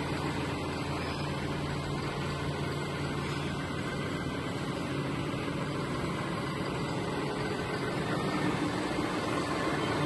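John Deere PowerTech tractor's diesel engine running steadily as the backhoe-loader tractor moves about, getting slightly louder near the end.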